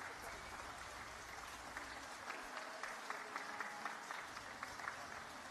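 Audience applauding: a steady wash of many hands clapping, with single claps standing out.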